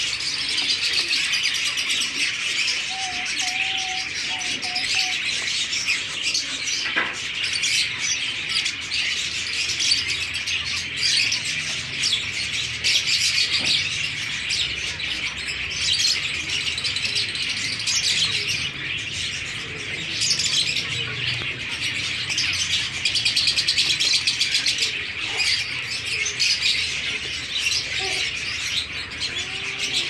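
Zebra finches in a colony chirping and calling, many short high-pitched calls overlapping without pause.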